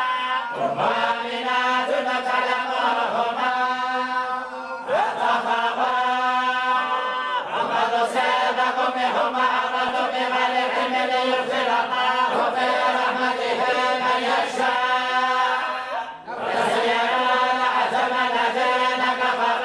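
Group of voices reciting the Quran together in unison in the Moroccan collective style, with long, held, melodic phrases. There is a brief pause for breath about sixteen seconds in.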